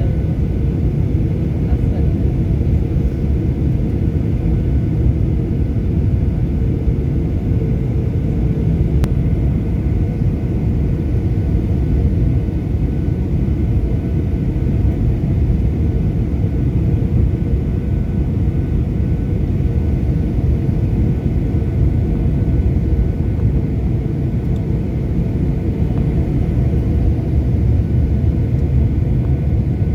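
Steady rumble of a Boeing 737-800's CFM56 engines and airflow heard inside the passenger cabin, with a faint steady hum over it.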